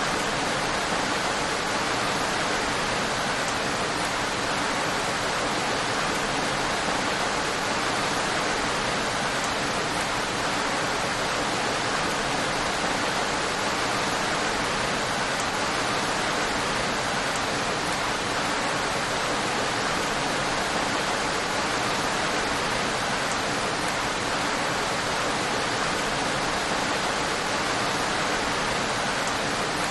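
Steady rain, an even, unchanging hiss with no single drops standing out.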